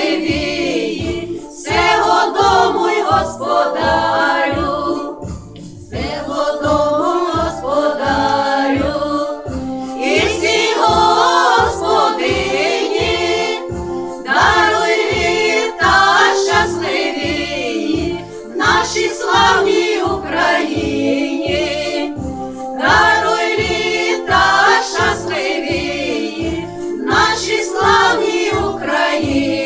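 A group of voices singing a Christmas carol in chorus over a backing track with a steady low beat.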